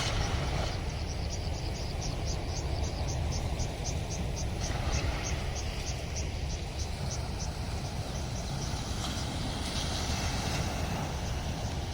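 Steady low rumble of wind and rushing water, with an insect chirping in a high, even pulse about three times a second.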